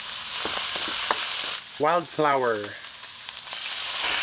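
Garlic, onion and shellfish meat sizzling steadily as they sauté in a pan, with a utensil clicking against the pan a few times while stirring.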